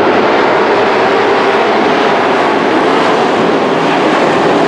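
A field of dirt-track race trucks running at racing speed together, their engines blending into one loud, steady sound.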